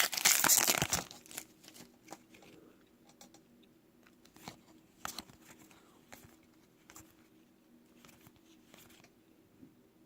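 Foil trading-card pack wrapper tearing and crinkling, loudest in the first second. Then faint scattered ticks and rustles of cards being handled.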